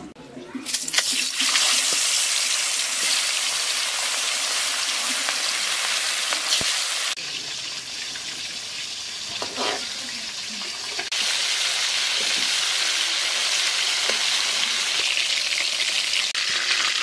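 Turmeric-coated stingray pieces sizzling as they fry in hot oil in a kadai: a steady hiss that drops in level for a few seconds in the middle, then comes back.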